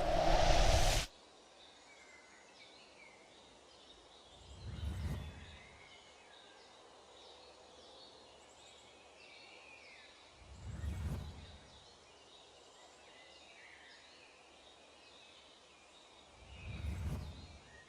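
Faint outdoor ambience with small birds chirping. A loud rising swell cuts off sharply about a second in, and three low swells, each about a second long, come about six seconds apart.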